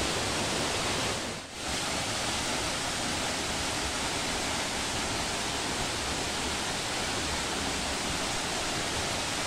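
Steady rushing of a waterfall and the stream below it, with a brief drop-out about a second and a half in.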